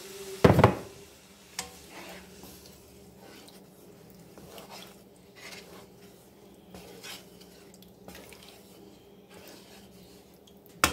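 A wooden spatula stirring milk and ground beef in a nonstick skillet, with soft scrapes and light taps against the pan. There is a sharp knock about half a second in, and a steady low hum underneath.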